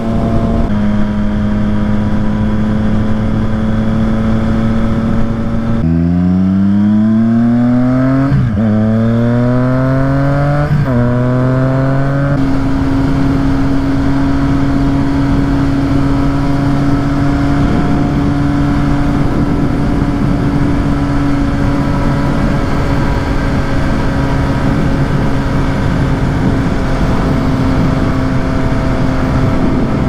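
Triumph Street Triple 765 RS inline-three engine through its Yoshimura exhaust, running at a steady cruise. About six seconds in, the engine revs up in two rising runs with a quick upshift between them, then settles to a steady cruise at a higher pitch.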